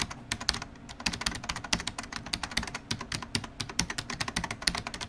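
Fast typing on a computer keyboard: an irregular run of key clicks, several a second.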